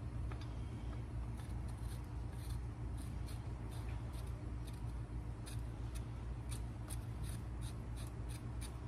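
Ratchet wrench clicking in light, quick ticks as bolts on a new turbocharger are run in by hand, about three or four ticks a second in the second half, over a steady low hum.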